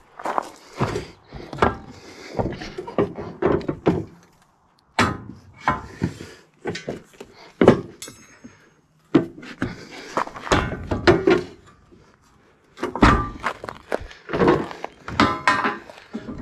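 Heavy steel sawmill track sections, quarter-inch-thick steel, being lifted and set down on a wooden crate pallet: an irregular string of thunks, knocks and scrapes, with a few short pauses.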